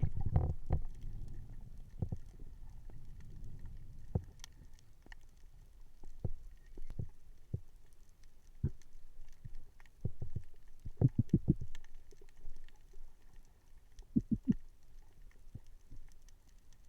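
Irregular knocks and clicks over a low rumble, as picked up underwater on a spearfishing dive, with quick runs of three or four taps about 11 and 14 seconds in.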